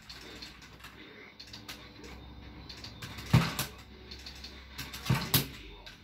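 Arcade stick with a Crown 303 joystick, its lever and buttons clicking and clacking in quick play, mixed with a fighting game's hit sounds and shouts from the TV. The loudest hits come a little past halfway and again near the end.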